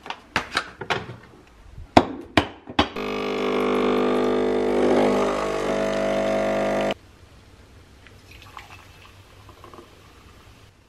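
A few sharp knocks and clicks, then an espresso machine's pump runs with a loud, steady buzz for about four seconds while a shot pours into a mug. The pump cuts off suddenly about seven seconds in.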